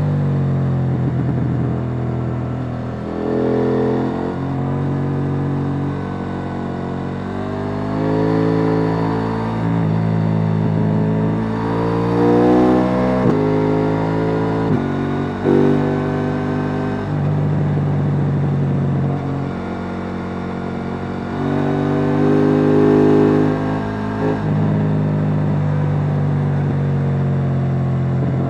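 KTM 890 Duke R's parallel-twin engine through its stock exhaust, under way. Its pitch climbs again and again as it accelerates, then drops back sharply each time before the next pull.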